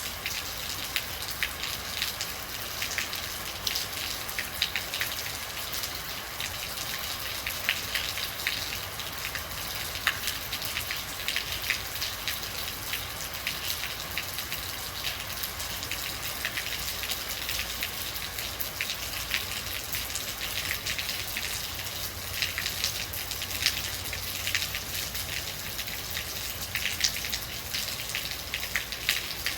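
Steady rainfall with many individual drops pattering sharply on a hard surface close by, over a continuous hiss.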